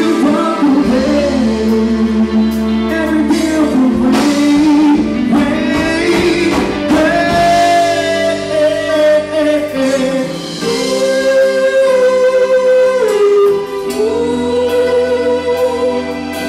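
Male singer performing a slow song live with a band, with electric guitar, drums and female backing vocals. The voice holds long notes about halfway through and again toward the end.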